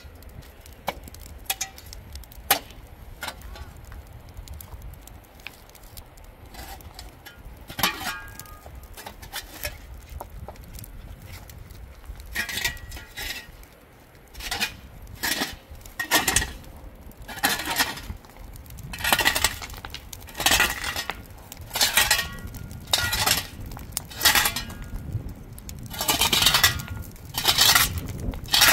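Steel shovel blade digging and scraping into dry, stony soil, clinking and ringing as it strikes stones. The strokes come roughly once a second from about halfway through, after a stretch of only scattered small clicks.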